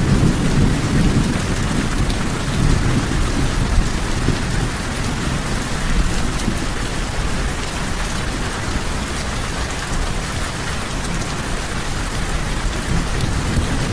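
Steady heavy rain falling, with a low rumble in the first couple of seconds that fades away.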